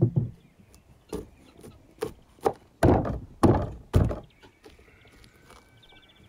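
A clay jug set down on a wooden table with a heavy knock, then a run of dull thumps as a hand presses and strikes a garlic bulb against a wooden board to break it into cloves. The loudest three come in quick succession about three to four seconds in.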